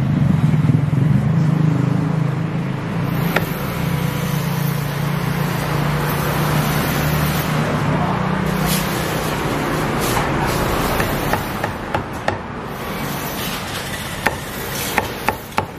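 Street traffic noise with a vehicle engine running, its low hum fading about halfway through. Near the end, a cleaver chops meat on a thick wooden chopping block in a quick series of sharp knocks.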